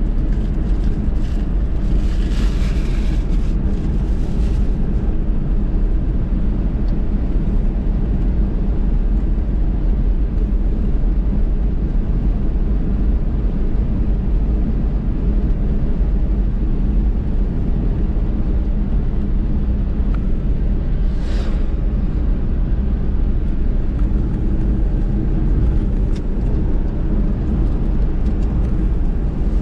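Steady low road rumble of a car driving, engine and tyre noise without a break. A brief hiss comes about two seconds in and another about twenty-one seconds in.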